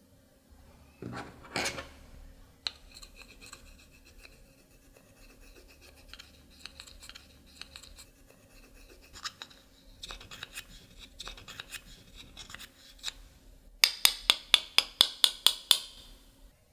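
Scraping and scratching as makeup and slime are handled, with scattered small clicks. Near the end comes a quick run of about a dozen sharp clicks, roughly five a second.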